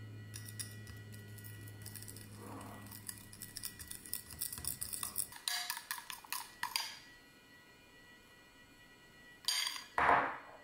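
Metal fork clinking and scraping against a glass bowl while stirring powdered sugar and lemon juice into a glaze: a quick, uneven run of small clicks for several seconds. Near the end come two louder short scrapes.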